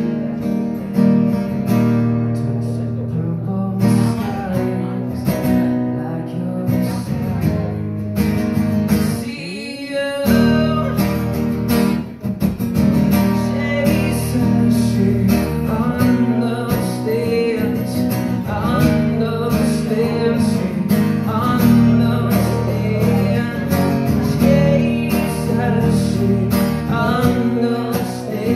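Acoustic guitar strummed through a PA, with a man singing over it, in a live solo performance. The playing breaks off for a moment about ten seconds in, then resumes.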